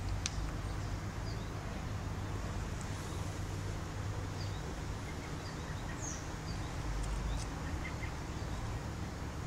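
Background ambience: a steady low rumble with faint, scattered small bird chirps.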